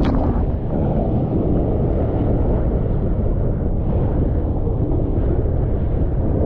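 Wind buffeting the microphone over rushing water and a jet ski running through rough, choppy storm seas, with a sharp hit of spray right at the start.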